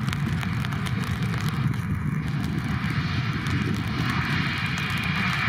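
Airbus A320 jet engines running as the airliner rolls fast along a wet runway, a steady rumble under a rushing noise. About four seconds in, a high whine swells and the sound grows louder.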